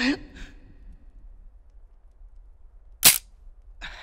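Revolver hammer snapping down on an empty chamber about three seconds in: a single sharp, loud click, the trigger pull of Russian roulette with the cylinder half-loaded and spun.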